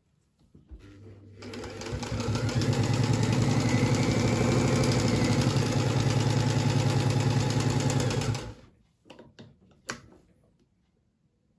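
Singer 201K electric sewing machine starting with a brief motor hum, running up to a fast, steady, even rhythm for about six seconds, then stopping abruptly; a few light clicks follow.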